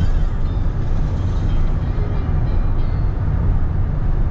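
Steady low rumble of a car driving at highway speed, road and tyre noise heard from inside the cabin.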